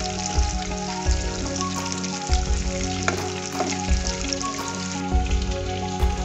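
Pork pieces sizzling in their own rendered fat in a nonstick kadai, cooked without added oil, with a spatula scraping and turning them now and then. Soft background music plays underneath.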